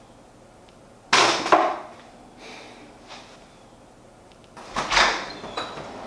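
A banana peel dropped into a trash can: a sudden loud noise about a second in, lasting about half a second, and a second noise near the end.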